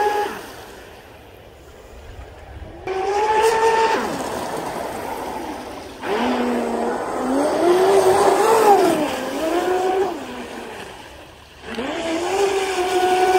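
The brushless electric motor of a Deltaforce 35 RC speedboat whines through several throttle bursts, its pitch climbing and falling on each run. Quieter gaps fall between the bursts.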